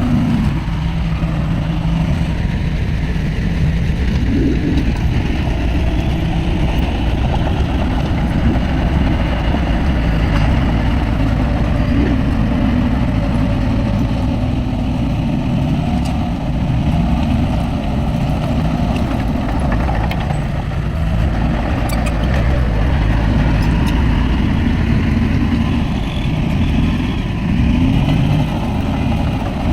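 Heavy diesel engine of earthmoving machinery running steadily under working load, its pitch rising and falling a little.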